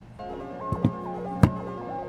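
Background music with a stepping, plucky synth melody, with three short sharp thumps in the first second and a half, the last one the loudest.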